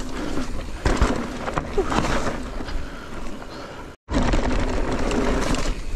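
Mountain e-bike riding down a rough trail: wind buffeting the camera microphone over tyre rumble and the bike's rattling, with a sharp knock about a second in. The sound cuts out for a split second about four seconds in, then the same riding noise carries on.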